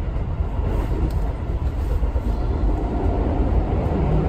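A moving train heard from inside the carriage: a steady, low running noise of the train on its rails.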